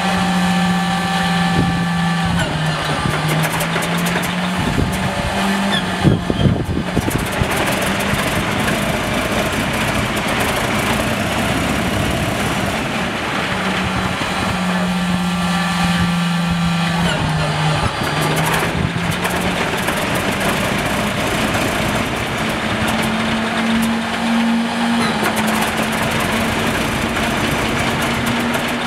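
Cold start of one of a Lockheed P-38 Lightning's Allison V-1710 V12 engines: the starter whines as the engine turns over, with a few loud sharp firing bangs about six seconds in. The whine comes back as a second cranking attempt near the middle and again in the last few seconds, the engine not yet running steadily.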